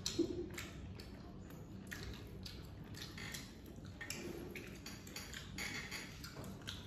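Eating sounds close to the microphone: wet chewing and lip smacks, with fingers mixing rice on plates and small irregular clicks and taps against the dishes.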